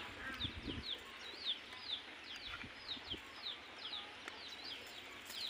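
A bird calling: a run of short, high, falling chirps, two or three a second, with a few low thumps in the first second.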